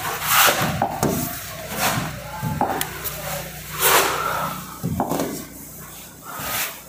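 Irregular rubbing and scraping with a few light knocks, as of hands handling materials, over a faint steady low hum.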